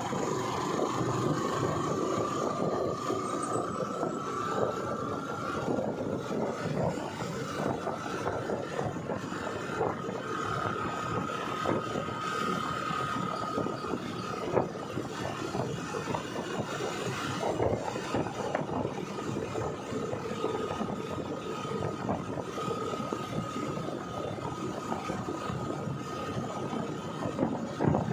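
Steady road noise of a two-wheeler on the move at speed: engine and rushing air, with a thin whine that rises slightly over the first few seconds and then holds steady.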